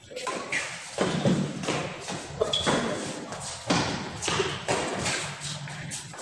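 Badminton doubles rally: rackets striking the shuttlecock and players' feet thudding on the court. There is a sharp knock or thud about every half second to second.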